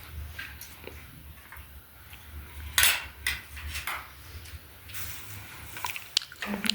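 Cutlery and dishes clinking and knocking during a meal, in scattered short strikes, the sharpest about three seconds in.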